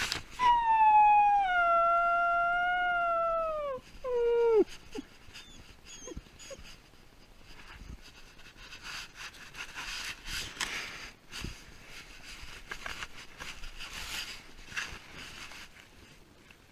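Dog howling while left home alone: one long howl that slowly falls in pitch and drops away at its end, then a short second howl that falls off sharply. Faint rustling and clicks follow.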